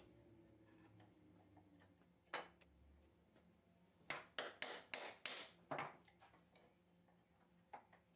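Bench chisel cutting the waste off a tenon to form its shoulder: one sharp click about two seconds in, then a run of about seven quick knocks, and two more near the end.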